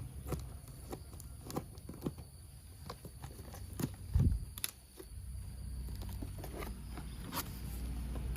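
Scattered clicks and light knocks of plastic toy parts being handled, with a louder knock about four seconds in, over a low hum that fades early and builds again in the second half.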